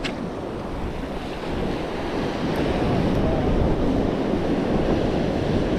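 Surf washing onto the shore with wind blowing across the microphone, the wash swelling a little about a second and a half in.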